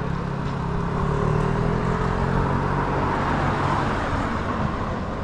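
A motor vehicle driving past on the street: engine hum with tyre and road noise that swells after about a second, its pitch dropping slightly as it goes by.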